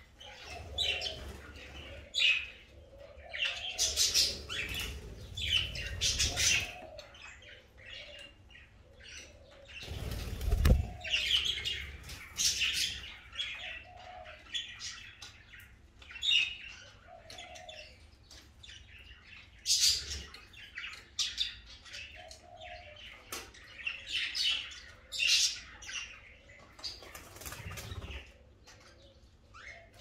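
A flock of budgerigars chattering and chirping in quick, overlapping warbles, with bursts of wing flapping as birds flutter about the cage; the loudest flurry comes about ten seconds in.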